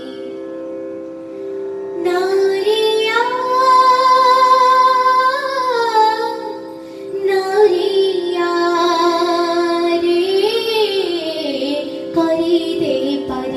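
A young girl singing an Odia song solo into a microphone over a steady held drone accompaniment. Her voice comes in about two seconds in with long, ornamented notes that bend up and down, dipping briefly around the seven-second mark.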